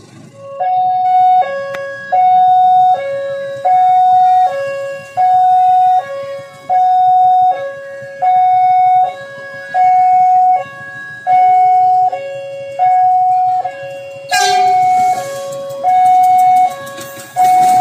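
Railway level-crossing warning alarm sounding an electronic two-tone signal, alternating a higher and a lower note about every three-quarters of a second, warning that a train is approaching. A rushing noise joins about fourteen seconds in.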